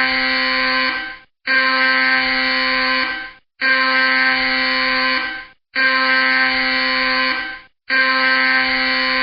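Intense alarm sound effect: a loud pitched alarm tone sounding in repeated blasts just under two seconds long, about one every two seconds. Each blast steps up briefly in pitch before cutting off.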